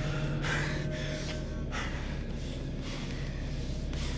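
A fighter's heavy, gasping breaths, a few sharp ones in the first couple of seconds, over a low steady music drone.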